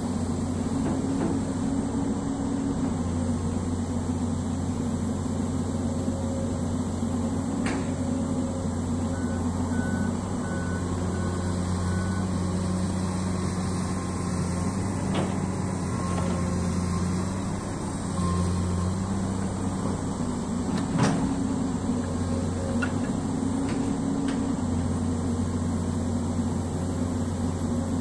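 Komatsu PC200 amphibious excavator's diesel engine running steadily under digging load, its note shifting a few times as the hydraulics work the boom and bucket, with a few sharp knocks from the digging gear.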